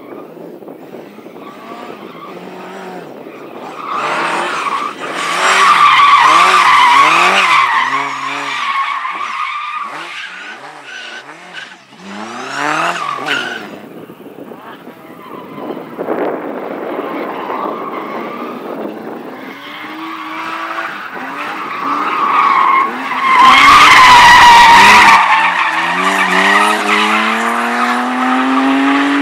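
Car being driven hard through a slalom course. The engine revs up and drops back again and again, and the tyres squeal loudly through the turns, most strongly twice. Near the end the engine pulls up steadily in pitch as the car accelerates.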